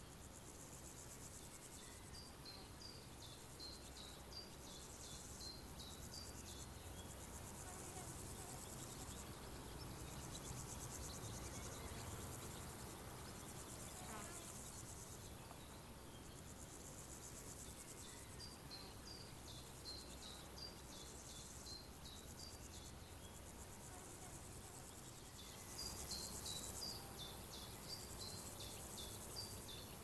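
Summer outdoor ambience: insects chirring in a steady high-pitched buzz that grows louder near the end, while a songbird sings three phrases of short, quick, high notes.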